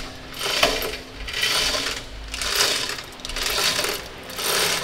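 Manual chain block on a gantry being worked by hand: the hand chain rattles through the block in repeated bursts about once a second while a suspended engine is positioned.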